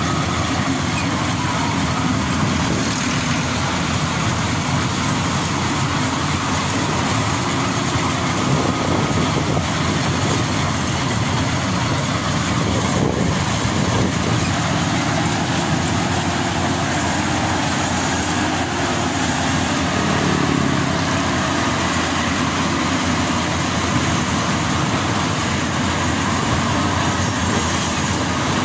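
Maxxi Bimo 102 rice combine harvester running steadily while cutting and threshing standing rice: a continuous, loud engine and machinery drone with no breaks.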